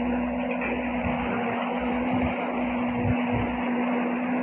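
Speedboat engine running steadily under way, a constant droning hum with an uneven low rumble underneath.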